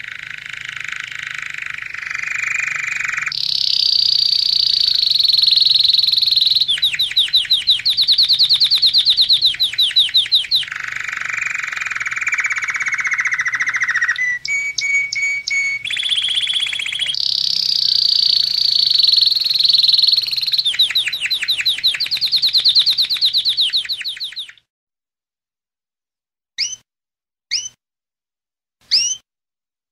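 Domestic canary singing a long, continuous song of rapid trills and rolls that shift to a new pitch every few seconds. The song stops sharply about 24 seconds in, followed by a few short single call notes.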